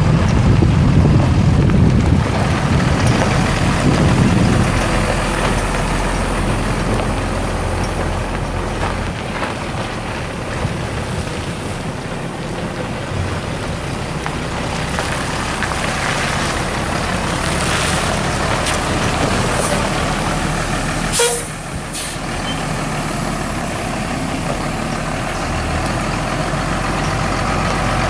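International DT466 7.6-litre inline-six turbo diesel of a truck running steadily, its low rumble loudest in the first few seconds. About three-quarters of the way through there is a short, sharp burst of air hiss.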